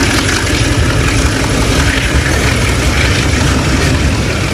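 Long freight train of loaded log wagons rolling past, a steady low rumble with a rushing noise over it.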